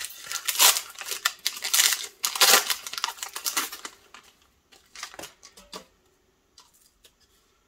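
Foil wrapper of a hockey card pack crinkling and tearing as it is ripped open by hand, with many sharp crackles. About four seconds in it dies down to a few faint rustles and clicks as the cards are slid out.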